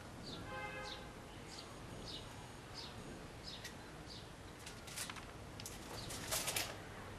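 A bird chirping repeatedly, a short high falling note about every two-thirds of a second. Near the end comes a brief burst of sharp clicks and rattling, the loudest moment.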